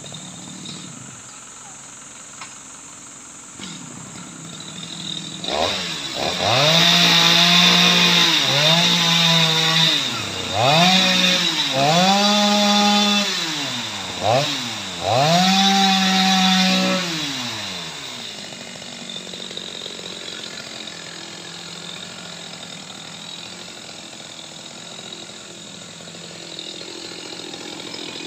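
Chainsaw revving in about five surges over some twelve seconds, each rising to high speed, holding briefly and dropping again, then falling back to a low idle.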